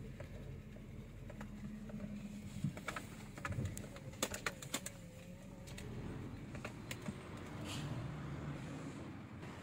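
A car driving slowly, heard from inside the cabin: a low steady engine hum with scattered clicks and knocks.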